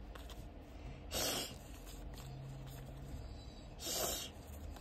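Two short breathy puffs, such as nose exhales, about a second in and again near the end, over faint handling of a stack of vinyl stickers.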